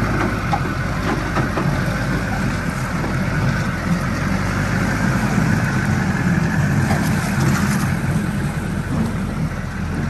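Engine of a lifted monster-tired pickup running low and steady as the truck crawls off the bank into a pond.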